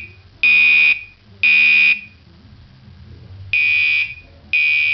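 Gentex Commander 2 fire alarm horn sounding in alarm after a pull station was pulled. It gives half-second buzzy blasts about a second apart, in groups of three with a longer pause between groups: the temporal-three evacuation pattern.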